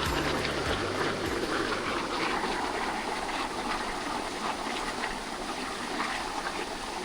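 Steady rushing of water from a waterfall, an even hiss with no let-up. The tail of background music fades out in the first second.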